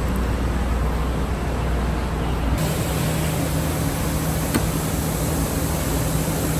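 Steady machinery hum and hiss of a car assembly line. About two and a half seconds in, the low hum changes abruptly to a different steady hum with more hiss, and a single sharp click sounds about a second and a half later.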